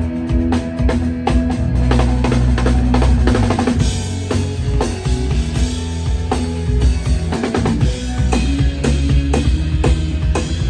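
Tama Star Classic drum kit being played, with kick drum, snare and cymbal strokes in quick succession, over sustained low bass notes.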